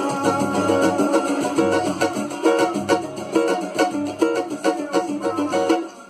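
Rosewood (jacarandá) cavaquinho strummed with a pick in quick, even chord strokes, with low drum beats underneath. The playing stops shortly before the end.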